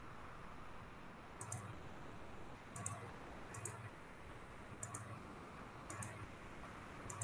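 Computer mouse clicking faintly: a quick press-and-release double tick about once a second, six times over.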